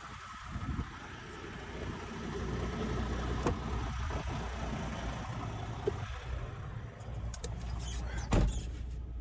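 Semi-truck's diesel engine idling with a steady low hum that grows louder about two seconds in. A few light knocks are heard, with a heavier thump near the end.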